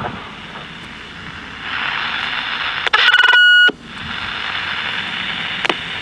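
CB receiver static hissing from a Johnson Messenger 130A base set's speaker. About three seconds in, a click and a loud, steady squeal lasting under a second cut through as the Messenger 109 handheld transmits nearby: the base picks up the test signal, its static goes quiet under the carrier, and the audio feeds back. The static resumes after a second click.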